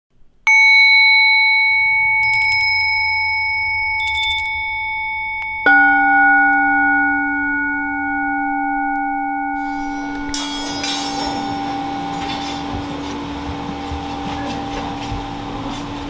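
An orin bowl bell struck about half a second in, ringing on with a clear high tone. Small high bells jingle briefly twice, and then a second, lower-pitched orin is struck and rings on. From about ten seconds in, the rushing, crackling sound of a furnace fire rises under the ringing.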